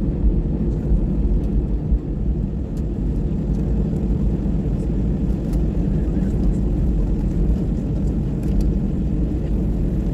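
Airbus A320's jet engines heard from inside the cabin while the airliner taxis: a steady low hum and rumble with no change in power.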